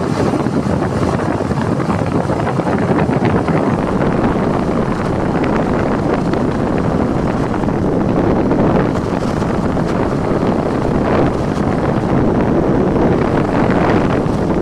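Wind buffeting the microphone on a moving motorcycle, over the motorcycle's engine and road noise; loud and steady.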